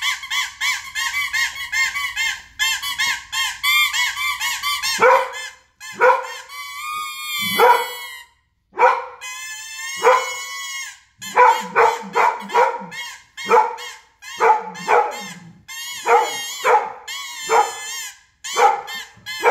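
Plastic toy trumpet blown in a quick run of honking toots, then in separate short toots with pauses, while a dog howls along.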